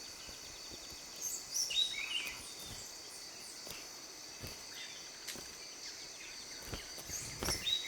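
Tropical rainforest ambience: steady high-pitched insect trilling, a few short bird chirps, and several sharp snaps or clicks scattered through.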